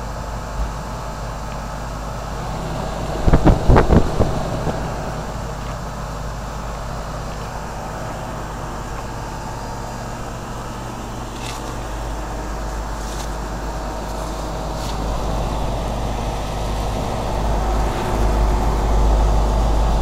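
A 2004 Carrier 3-ton heat pump's outdoor unit running in heating mode, its Copeland compressor and fan giving a steady hum. A short cluster of knocks comes about three to four seconds in.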